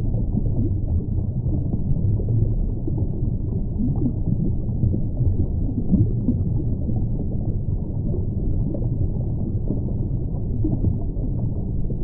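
Underwater ambience: a steady low rumble with faint crackling and popping through it.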